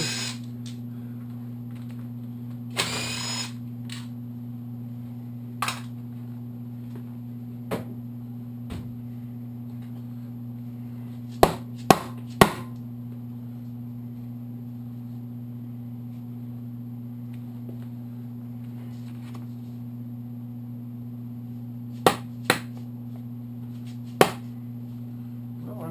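Engine teardown bench work: a brief whir of a cordless impact driver or drill about three seconds in, then scattered sharp clinks as engine bolts and parts are handled and set down. A steady low hum runs underneath.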